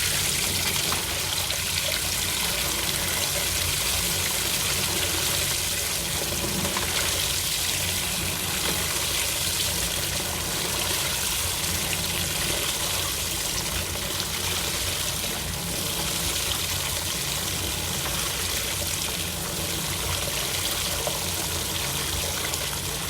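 Water rushing steadily into the drum of an AQUA MCW-C70A coin-operated washing machine as it fills, an even rushing with no rhythm.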